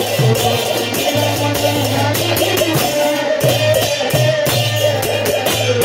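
Live devotional kirtan music: a lead voice sings over a barrel-shaped hand drum (khol/mridanga) and small hand cymbals clashing in a steady rhythm.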